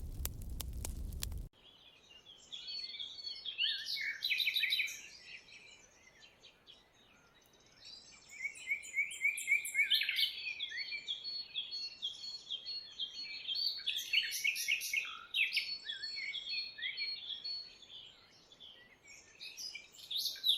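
Wood fire crackling, which cuts off suddenly about a second and a half in; then birds singing, with rapid chirps and trills and a quieter spell in the middle.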